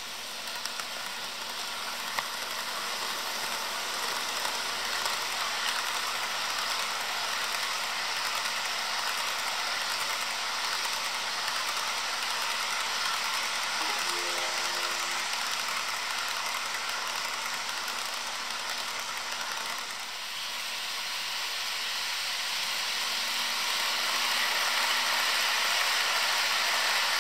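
HO scale model freight train rolling past on its track: a steady whirring rattle of small wheels on the rails. It dips briefly about two-thirds of the way in, then grows louder to the end.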